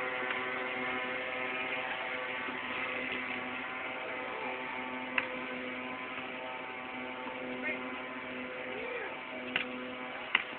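A steady hum made of several held tones, with a few sharp knocks that fit a basketball bouncing on the court: one about five seconds in and a couple near the end.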